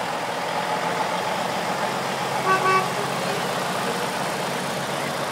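Engines of light-decorated semi trucks running as they drive slowly past, a steady rumble, with a short horn toot about two and a half seconds in.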